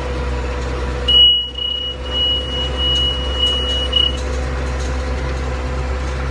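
Cab of a 100 hp Valtra tractor running steadily under load while baling. A high electronic beep from an in-cab monitor sounds in a broken run of pulses for about three seconds, starting about a second in.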